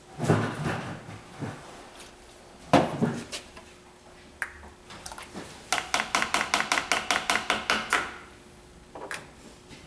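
Containers and utensils being handled on a work table: a bump near the start, a knock about three seconds in, then a quick, even run of about twenty light clinks lasting a couple of seconds.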